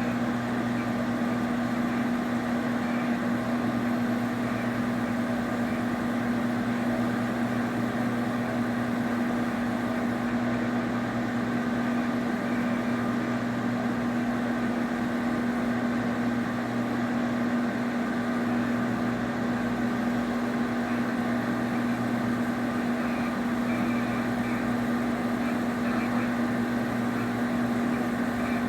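Farsoon metal 3D printer running: a steady machine hum with a strong constant low tone that does not change.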